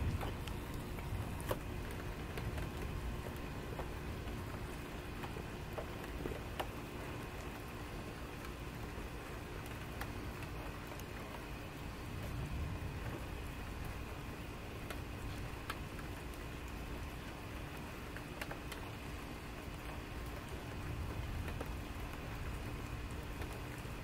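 Steady rain falling, with scattered drops ticking close by. Low rumbles of distant thunder swell about halfway through, as lightning flashes, and again near the end.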